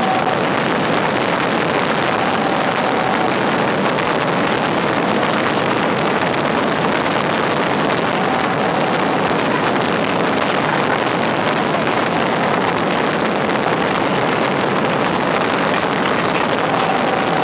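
Massed barrage of voladores (Asturian sky rockets) bursting overhead, so many bangs at once that they merge into one loud, continuous din.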